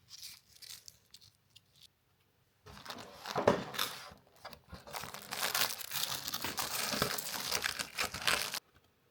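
Advent calendar door and its paper wrapping being torn open and crinkled by hand: a few light scratches, then about six seconds of dense tearing and crinkling that stops abruptly near the end.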